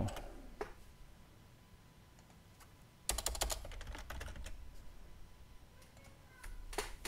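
Computer keyboard typing: a quick run of keystrokes about three seconds in, with a single click shortly after the start and a few more clicks near the end.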